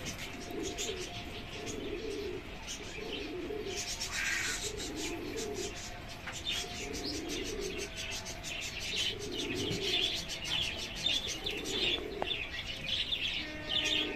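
Pigeons cooing, a low coo about once a second, over a dense chatter of small birds chirping that grows busier in the second half.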